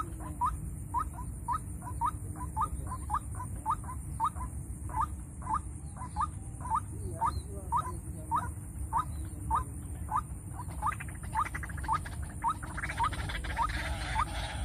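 White-breasted waterhen (ruak-ruak) calls: a long series of short, rising notes repeated about two to three times a second, over a steady low rumble.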